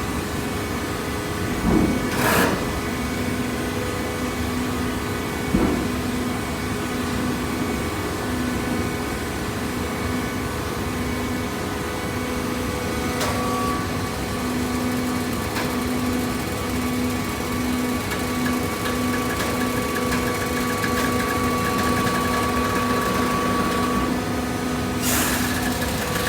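Hydraulic baling press running: a steady motor-and-pump hum with a pulsing low tone, a couple of knocks, and a brief noisy burst near the end.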